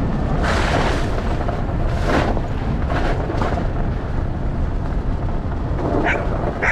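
A dog barking in short bursts over a steady low rumble, then giving a couple of high yips near the end.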